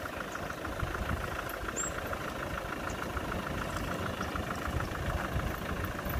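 Kubota M6040SU tractor's diesel engine idling steadily with an even clatter.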